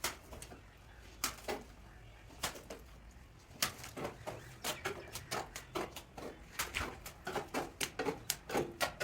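Irregular sharp taps and clicks, a few at first and then several a second from about the middle on.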